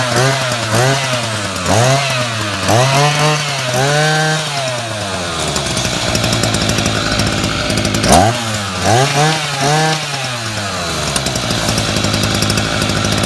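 Kawasaki TJ53E two-stroke brush-cutter engine, freshly started, running loud and being revved in quick blips about once a second, settling to a steady idle, revved in another run of blips, then idling again.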